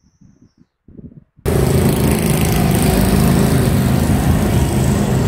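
Small motorcycle engine running steadily close by, loud. It comes in suddenly about a second and a half in.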